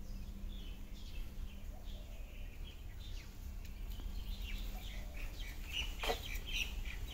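Birds chirping and calling again and again over a steady low hum, with one sharp click about six seconds in.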